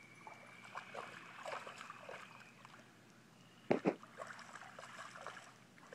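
A greyhound wading through shallow floodwater, its legs sloshing and lightly splashing the water every fraction of a second. Just past the middle there is a brief, much louder double thump.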